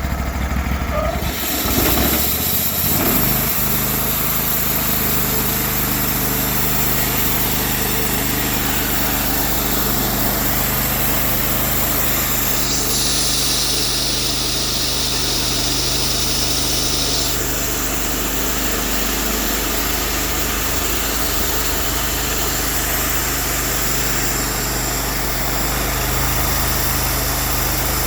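Cook's MP32 band sawmill running: its engine revs up a couple of seconds in and then holds steady under load, with a broad hiss of the band blade cutting through a log. A stronger high hiss rises for a few seconds in the middle.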